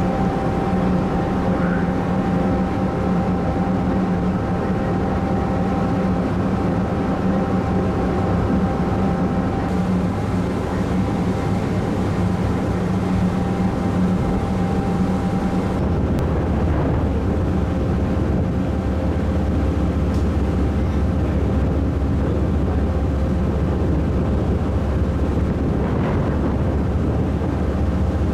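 Steady vehicle engine drone with a few held tones over a low rumble; the rumble deepens and grows stronger about halfway through.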